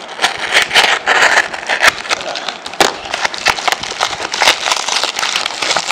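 Yellow padded paper mailer being slit with a utility knife and pulled apart by hand: crinkling and crackling paper with many sharp snaps and rips.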